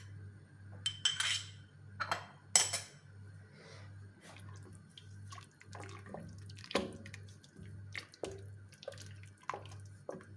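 Tomato going into a pot of vegetables in fish broth and being stirred with a spoon. Two wet scraping pours come in the first three seconds, then scattered liquid plops and light clinks of the spoon against the pot.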